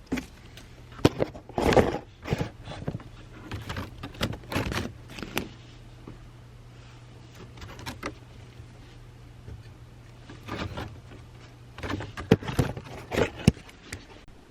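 Scattered clicks, knocks and light clatter of things being handled, louder near the start and near the end, over a faint steady low hum that stops about twelve seconds in.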